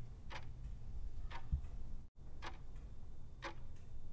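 Clock-ticking sound effect marking a countdown timer, one tick a second, four ticks in all, over a faint low hum.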